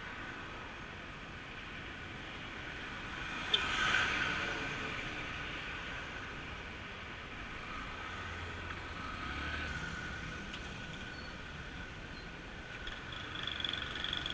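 Outdoor street background noise with a vehicle passing; the noise swells to its loudest about four seconds in, just after a sharp click, and a smaller swell follows near the middle.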